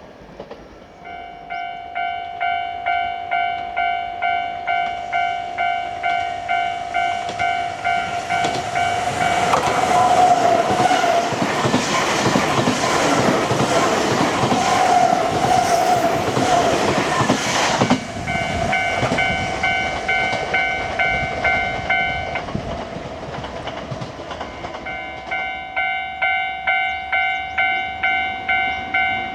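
A Japanese level crossing's warning bell rings about twice a second as a Nankai Kōya Line train passes over the crossing. The train's running noise drowns the bell from about nine to eighteen seconds in. The bell stops a few seconds later, then starts ringing again near the end.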